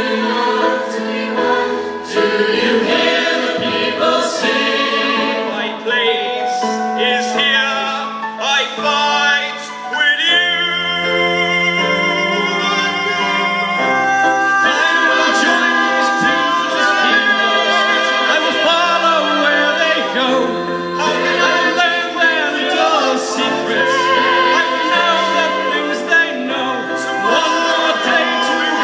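Large mixed choir of men's and women's voices singing together, holding long chords that shift from note to note.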